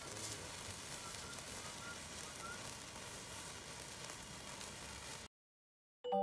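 Handheld sparkler firework burning with a steady hiss and fine crackle, cutting off suddenly about five seconds in. A chiming glockenspiel-like tune begins just at the end.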